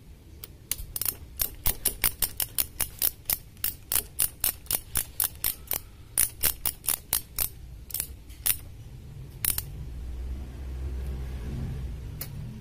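Ratchet wrench clicking rapidly, about four clicks a second, as it is swung back and forth to turn a spark plug in a motorcycle engine. The clicking stops and a low rumble of handling follows near the end.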